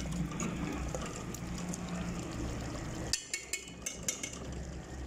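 Metal ladle stirring beef and spice masala in a metal cooking pot, with several sharp clinks of the ladle against the pot about three to four seconds in, over a steady low hum.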